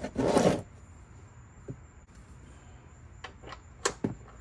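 A wrench breaking the oil-pan drain plug loose: a short burst of scraping noise at the start, then a few scattered sharp clicks.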